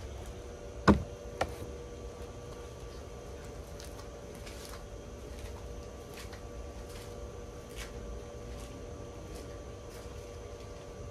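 A shoe stomping on crumbled Sahara dry floral foam: two crunching thumps about a second in, the first the louder, then only faint scattered ticks over a steady low rumble.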